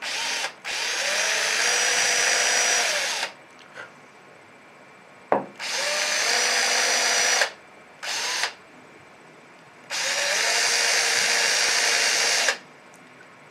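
Cordless drill boring screw holes into a clarinet joint for a thumb rest plate. It runs in five separate bursts of about half a second to three seconds, each spinning up to a steady whine, with a sharp click in between.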